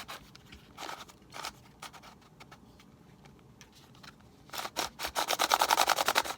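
Plastic ball-shaped twisty puzzle being turned by hand: a few separate clicks, then near the end a fast run of rapid clicking as its layers are spun quickly.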